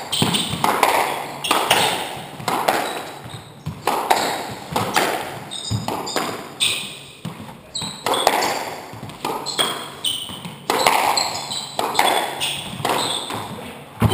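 Squash rally: the ball is struck by rackets and smacks off the walls about once every second, each hit echoing around the enclosed court, with short high squeaks of shoes on the wooden floor between the hits.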